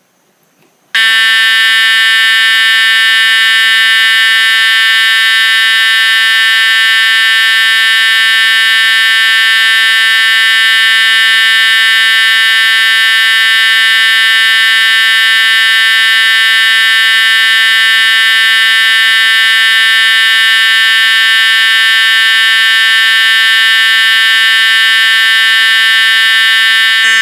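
System Sensor SpectrAlert Advance fire alarm horns set to high volume continuous, sounding one steady, very loud buzzing horn tone that starts about a second in and does not change.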